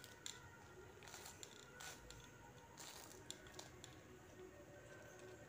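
Faint, soft crunchy snips of fresh radish leaves and stems being sliced against a foot-held curved floor blade, a few irregular cuts.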